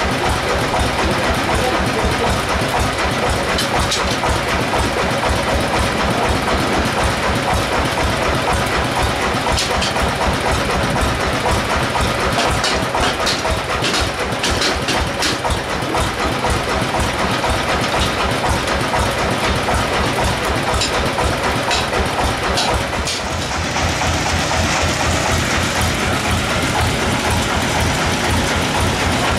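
Log bandsaw mill's machinery running steadily with a low, rhythmic pulse, with sharp clicks and knocks in the middle stretch. About three quarters of the way through, the noise changes to a deeper, more even pulsing drone.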